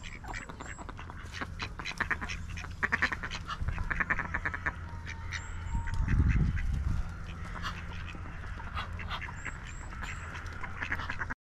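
Ducks quacking, some in quick runs of calls, with a few thin high chirps from small birds over a steady low rumble. A louder low rumble swells for about a second just past the middle, and the sound cuts off suddenly near the end.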